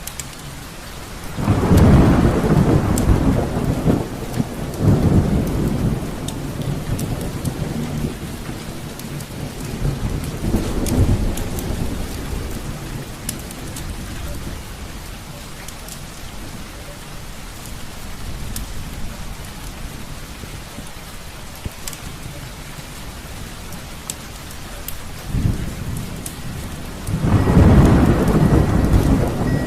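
Steady rain with rolling thunder: a long rumble starts about a second and a half in, a weaker one comes near the middle, and a loud rumble builds near the end.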